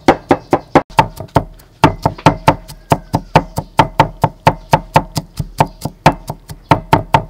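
Cleaver mincing garlic on a thick round wooden chopping board: rapid, even knocks of the blade on the wood, about five a second, with a short break about a second in.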